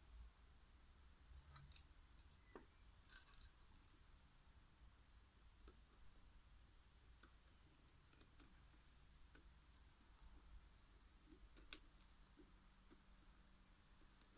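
Faint, scattered clicks and scratches of hands and a knife working on a power cable's end, handling its twisted copper screen wires, over near silence.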